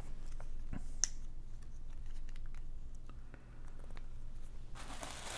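Scattered light clicks and handling noises as a bubble-wrapped package is handled, with plastic bubble wrap starting to rustle near the end.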